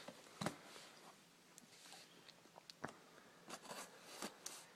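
Faint, scattered clicks and light rustles of hands handling trading-card packaging and wrappers, with a slightly sharper click about half a second in and another a little before three seconds in.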